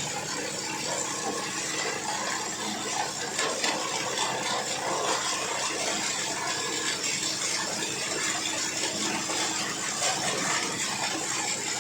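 18-inch PET bottle grinder running, a steady low motor hum under a dense, continuous rattle and clatter.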